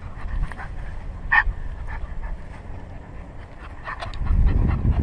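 Puppies at play: one short, high yip about a second and a half in, then a cocker spaniel puppy panting close up near the end.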